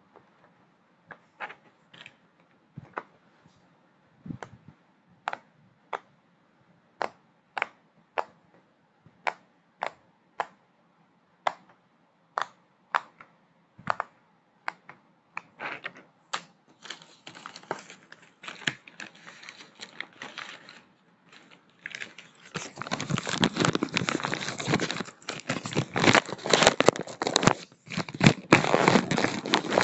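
Silicone push-pop fidget toy being pressed bubble by bubble: a string of sharp single pops, a little more than one a second. From about 16 s crinkling and rustling of packaging takes over, turning loud and continuous from about 22 s.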